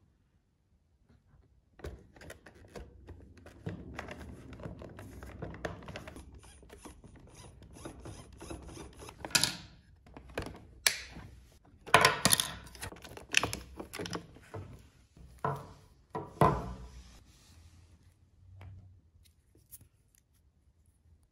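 Hands handling the plastic chassis of a toy RC car, opening the battery-compartment cover and taking hold of the battery and its wire lead: rustling and scraping plastic with a run of sharp clicks and snaps, loudest in the middle, starting after a couple of seconds of quiet.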